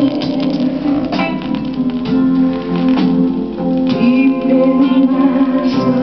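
A record playing through a vintage console record player's speakers: music led by plucked guitar.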